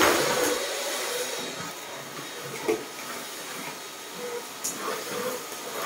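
Vacuum cleaner running steadily, its floor head worked over a tiled floor, with a couple of light knocks.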